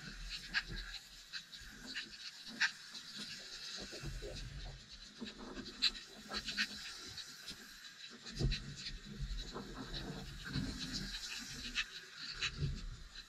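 Sea water heard through an underwater camera: low, muffled surges of moving water that come and go several times, with scattered sharp clicks and crackles.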